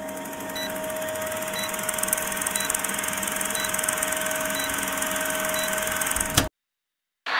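Old film projector sound effect for a film-leader countdown: a steady mechanical whirr and fast clatter over a low hum, with a short tick about once a second. It cuts off suddenly about six and a half seconds in.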